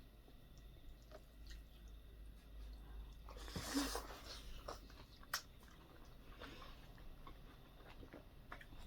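Close-up chewing and eating sounds: soft wet chews and small clicks, with a louder, brief breathy rush about three and a half seconds in.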